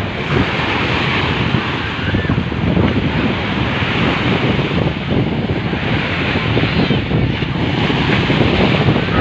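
Sea waves washing onto the beach in a steady surf, with wind buffeting the microphone.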